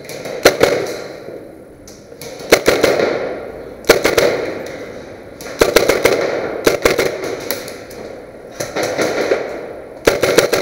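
Airsoft guns firing in short bursts: several clusters of sharp cracks a second or two apart, each ringing on in the echo of a large empty hall.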